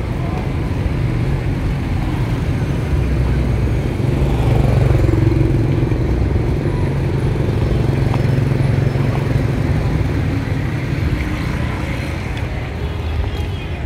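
Steady low rumble of motorbike engines and road noise in busy city street traffic, heard from a moving vehicle. It eases off a little near the end.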